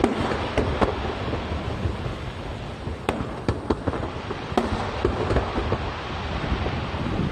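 Aerial fireworks shells bursting: several sharp bangs, a cluster at the start and more around three to five seconds in, over a continuous low rumble and crackle.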